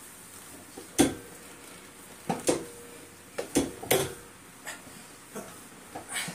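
Metal weight plates clinking and knocking during a set of chest presses: about ten sharp metallic knocks at uneven spacing, the loudest about a second in, some leaving a short ring.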